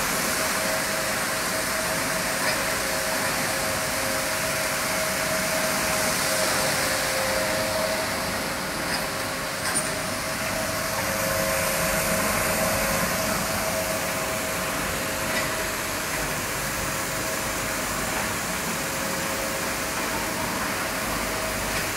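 Automated rug washing machine running steadily as it rolls up a washed rug: a constant, a little bit noisy rush of motor and water noise with a steady whine on top.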